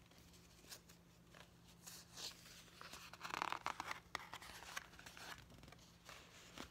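Faint paper rustling and crinkling as a page of a children's picture book is turned, loudest about three to four seconds in, with a few light handling clicks around it.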